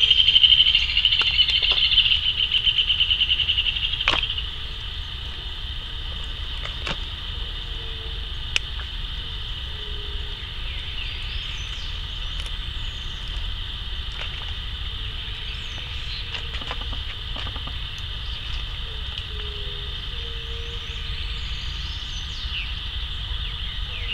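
Insects trilling: a loud, fast-pulsing trill for the first four seconds or so, then a quieter steady chorus, with a few sharp clicks.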